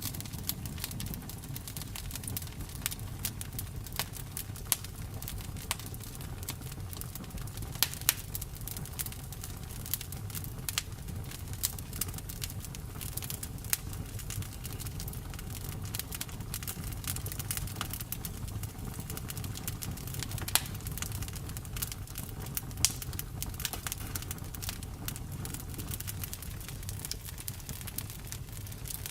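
Campfire burning: a steady low rush under frequent irregular crackles and pops of the wood, a few pops louder than the rest.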